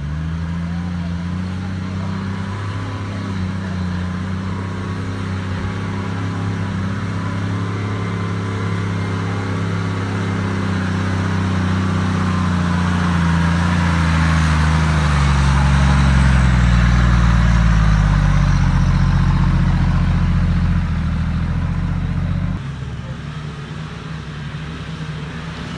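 Toyota Land Cruiser 80-series SUV's engine running at low revs as it crawls along a muddy off-road track. The note grows louder and slides down in pitch as the vehicle comes close, then drops off abruptly near the end.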